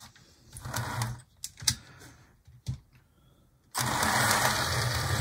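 Scattered clicks and taps as an HO-scale Mantua GP20 model locomotive is handled back onto the rails. Then, near the end, its electric motor starts and runs with a steady, loud, sewing-machine-like whir and hum as it moves along the track on freshly cleaned wheels.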